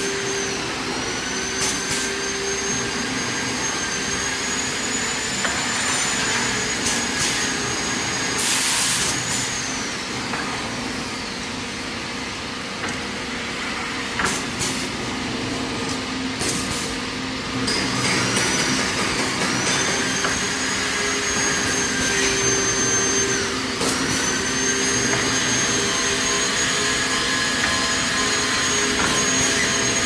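WB-12 serpentine tube bending machine running as it bends condenser tubes: motor whines that rise and fall in pitch over a steady hum, with a short hiss of air from its pneumatic cylinders twice.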